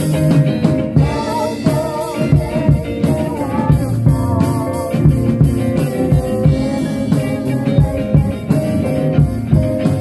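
Small rock band playing live, heard close up: drum kit, guitar and a singer's voice. The singing comes in about a second in.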